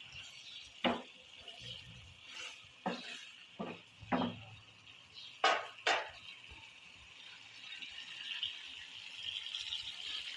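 Wooden spoon stirring chopped tomatoes in a steel pan. It knocks and scrapes against the pan about six times in the first six seconds, over a steady sizzle of frying that grows louder near the end.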